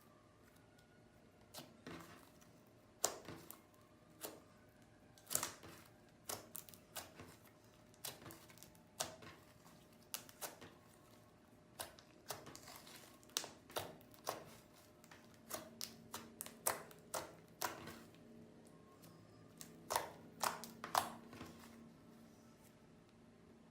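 Toothpaste slime being worked, giving irregular sticky clicks and pops, some in quick runs and the loudest few near the end.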